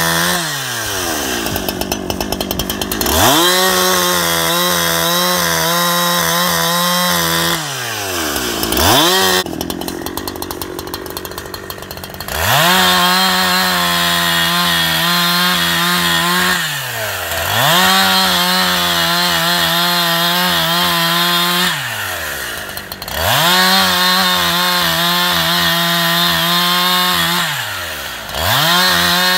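Holtzforma G372xp two-stroke chainsaw with a 24-inch Oregon bar and full-chisel chain bucking a log. The engine runs high, then its pitch slides down and climbs back up about five times as it works through cuts and is let off between them. It is on a rich 25:1 break-in mix and not at full throttle.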